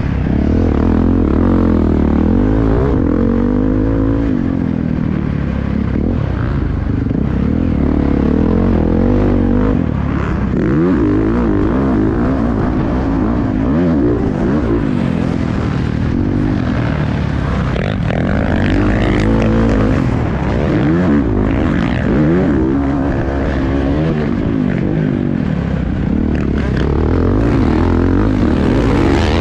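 Husqvarna FC450 four-stroke single-cylinder motocross engine under hard riding, revving up and falling back again every second or two as the rider works the throttle and gears around the track.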